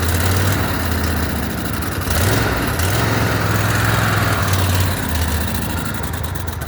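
Kohler Courage 25 V-twin engine on a Cub Cadet Super LT 1550 riding mower running unevenly on a shot of carburetor cleaner, and starting to stumble near the end. It is starving for fuel, which the owner puts down to the carburetor more likely than the fuel pump.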